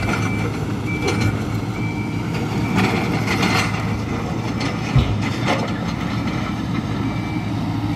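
Hidromek 102B backhoe loader's diesel engine running steadily while its reversing alarm beeps about once a second. Bursts of clatter and a sharp thud about five seconds in come from the machine working loose stockpile material.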